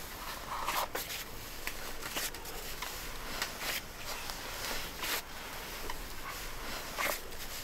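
Hands kneading and pressing dough on a round metal tray, making irregular soft rustles, slaps and light scrapes.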